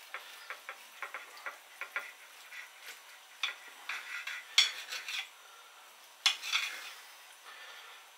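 Knife and fork working through a meatloaf on a plate: a run of small clicks and scrapes of the blade and tines against the plate, with two louder metal-on-plate clinks about four and a half and six seconds in.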